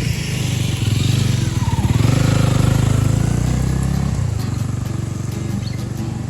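A Honda Rebel 250 motorcycle engine running while riding. It swells louder from about one to four seconds in, then eases off.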